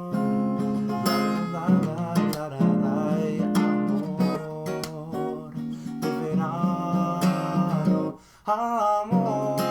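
Acoustic guitar being strummed, with a brief break about eight seconds in.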